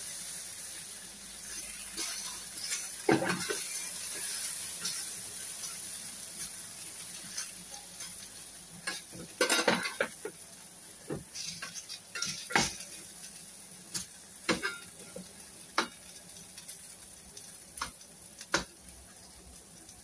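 Potato strips frying in hot oil in a metal pan, a steady high sizzle that grows slightly quieter, while a steel spatula turning them scrapes and clicks against the pan at irregular intervals.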